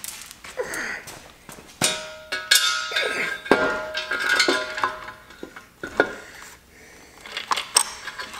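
Metallic clinks, clanks and chain rattles as an assembled Porsche M96 crank carrier, its timing chains dangling, is lowered and seated into the engine block. A few of the clinks ring on briefly in the middle.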